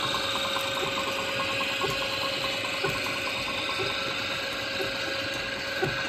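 Antique line-shaft transmission running, its flat belts turning over spoked cast-iron pulleys to drive a wooden washing machine and tumbler drum. The steady mechanical clatter carries a soft knock about once a second, and fast ticking fades out about four seconds in.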